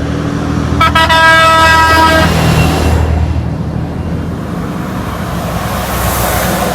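A semi truck's air horn gives one blast of about a second and a half, starting about a second in, over the loud rumble of heavy trucks passing on the highway.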